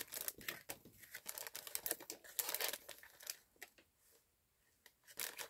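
A clear plastic bag crinkling and rustling in the hands as it is folded and fitted into a cardstock bag topper. The rustling stops about four seconds in.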